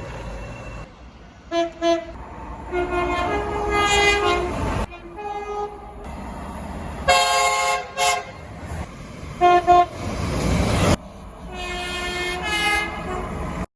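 Train horns in a run of separate clips: two short toots, longer blasts switching between two notes, a pair of quick toots, and a final two-note blast near the end, over the rumble of trains running past.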